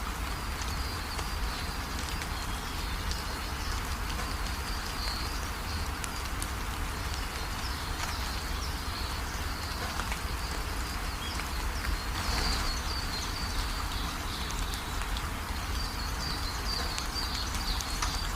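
Steady rain falling, with many small drops pattering, and faint high chirps now and then.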